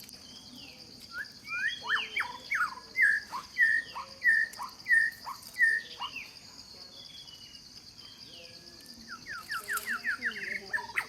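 Bird song: a series of about eight clear, down-slurred whistled notes, roughly two a second, then a quick trill of rapid notes near the end. Under it runs a steady high buzz of insects.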